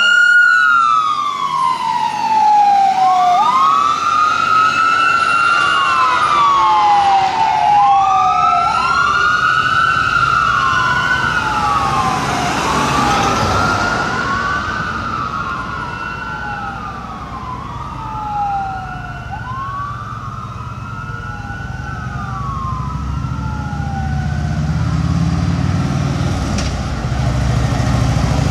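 Fire engine's Whelen electronic siren, each cycle sweeping up quickly and falling slowly, repeating every two to three seconds. It grows fainter as the truck drives away, and a low engine rumble rises near the end.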